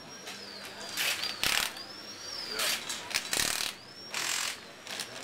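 Impact wrench on a rally car's wheel nuts, running in about five short bursts, each a fraction of a second long, as a wheel is changed.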